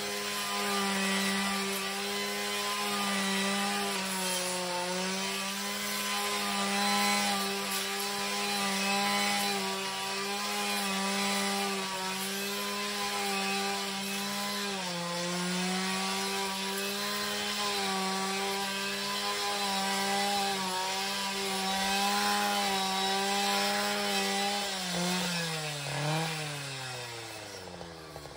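Husqvarna 545RX two-stroke brushcutter running at high revs, its note sagging briefly now and then as it cuts through thick giant hogweed stalks. Near the end the throttle is let off and the engine winds down toward idle.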